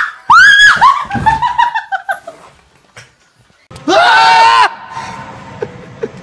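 Startled screams from people being scared: a high scream at the start that trails off into shorter falling cries, then a man's loud yell of fright about four seconds in, lasting about a second.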